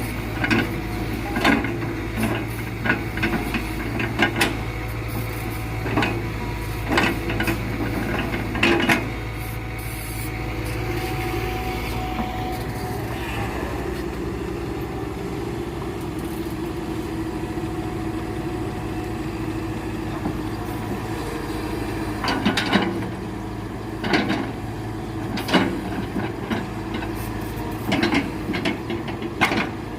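Excavator's diesel engine running steadily while rubberwood logs are handled, with repeated sharp knocks and clunks in clusters during the first third and again near the end.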